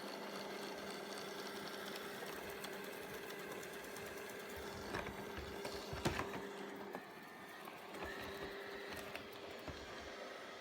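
ILIFE robot vacuum running with a steady motor hum. There are a few sharp knocks around five to six seconds in, and the hum changes about seven seconds in.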